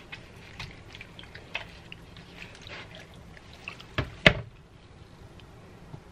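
Gloved hands working a raw, oil-slicked whole chicken on a metal sheet pan: small wet squelches and ticks, then two sharp knocks about four seconds in as the bird is turned over against the pan.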